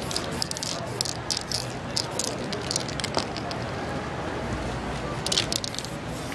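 Aerosol spray-paint cans hissing in short bursts, many in quick succession over the first two seconds or so, then a few more about five seconds in, against steady street traffic noise.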